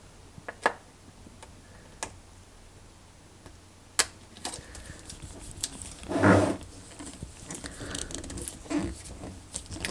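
Clear plastic flap being handled and pressed onto the tops of two sealed lead-acid batteries: scattered light clicks and crinkles, with one louder handling noise about six seconds in.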